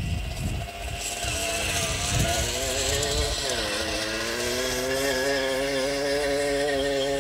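A vintage moped's small two-stroke engine running hard at high revs. Its pitch wavers and dips around three seconds in, then holds steady.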